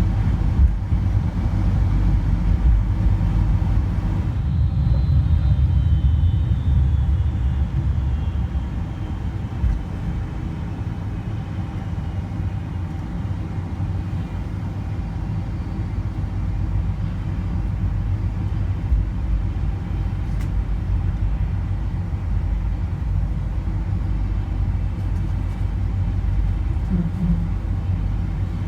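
Boeing 747-400 cabin noise during takeoff: a heavy low rumble from the engines and runway that eases about eight seconds in to a steadier drone, with a faint falling whine partway through.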